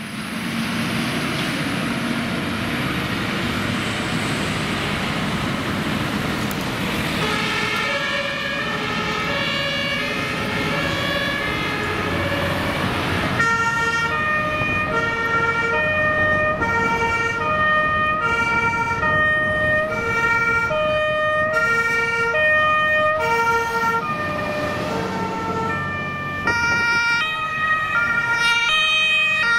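A heavy fire engine drives past with engine and tyre noise, then German fire-brigade two-tone sirens sound, alternating steadily between a high and a low note. The sirens come in faintly and grow loud about halfway through.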